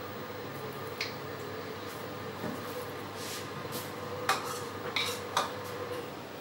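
Metal spoon spreading ketchup on bread slices on a plastic cutting board: soft scraping with a few light clicks and taps, one about a second in and a cluster between four and five and a half seconds in, over a faint steady hum.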